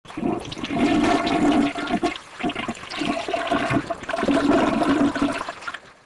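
A toilet flushing: a loud rush of gurgling water that surges twice and fades out near the end.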